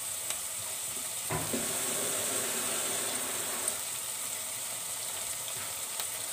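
Diced vegetables, mince and tomato paste sizzling in a stainless steel pot on a gas hob: a steady frying hiss at the sauté stage, before water goes in. There is a single knock just over a second in, and the sizzle is a little louder for the next couple of seconds.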